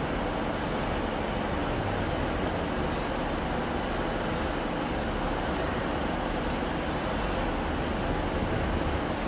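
Steady low rumbling ambience under a large railway station trainshed, an even din with no distinct events.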